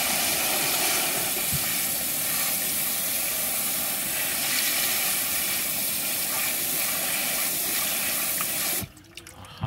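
Garden hose spray nozzle jetting a fine spray of water onto plastic toys in a plastic tub: a steady hiss that cuts off abruptly near the end.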